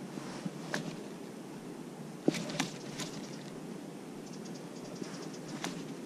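Rod and baitcasting reel handling during a jerkbait retrieve: a handful of sharp clicks and knocks, the loudest a little over two seconds in, over a steady low rustle, with a short run of fast faint ticks from the reel near the end.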